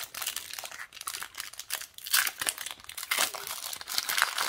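Foil wrapper of a Pokémon booster pack crinkling in irregular bursts as it is handled and torn open.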